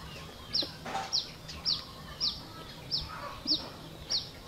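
A bird chirping over and over: a short, falling, high-pitched chirp repeated evenly about twice a second.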